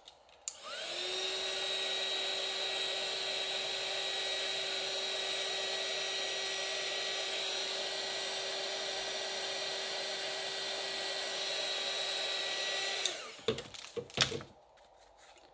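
Craft heat tool (embossing heat gun) switched on, its fan whine rising to a steady pitch within the first second, then blowing steadily to dry a still-damp inked card panel. It is switched off about 13 seconds in, followed by a few handling knocks.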